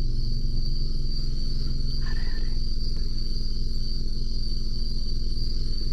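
Steady high-pitched chorus of crickets trilling, over the low steady hum of the car's engine.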